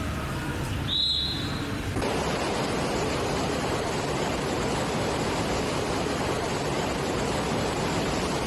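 Floodwater rushing hard, a dense, steady roar of water. About a second in there is a brief high-pitched squeal.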